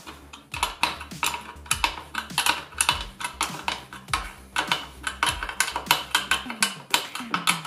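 Hand wrench on a motorcycle's rear chain-adjuster bolt: a run of quick, irregular metallic clicks and clinks as the bolt is turned to tension the drive chain.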